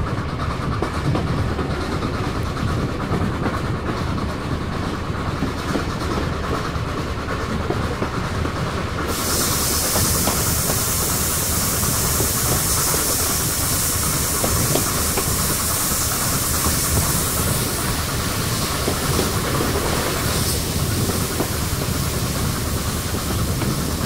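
Railway carriage running along the track, its wheels rumbling and clattering steadily over the rails. About nine seconds in, a high hiss sets in sharply over the rumble and eases off some eight seconds later.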